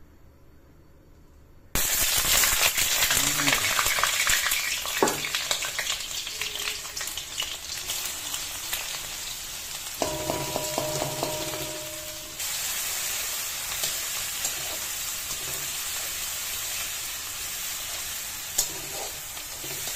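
Onion and cumin seeds sizzling in hot oil in a wok: the sizzle starts suddenly about two seconds in, then frying goes on steadily. A spatula stirs and scrapes against the wok.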